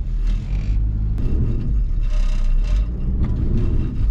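Car engine running under load and revving as it pushes another vehicle, its note rising and falling about a second and a half in.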